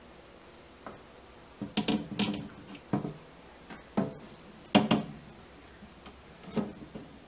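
A series of irregular knocks and clatters, a cluster of them early on and then single ones spaced about a second apart, the loudest a little before the five-second mark.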